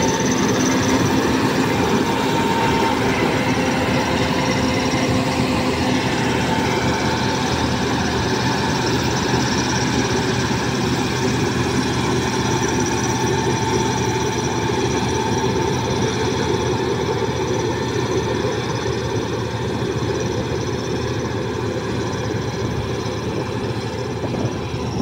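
Palesse GS12 combine harvester running under load while harvesting barley: a steady drone of engine and threshing machinery with a thin whine over it. It grows slightly fainter toward the end as the machine moves away.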